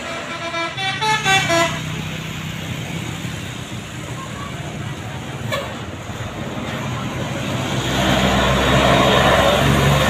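Telolet basuri multi-tone bus horn playing a quick run of short rising notes for about a second and a half near the start, followed by a bus's engine running, louder in the last two seconds as a bus passes close.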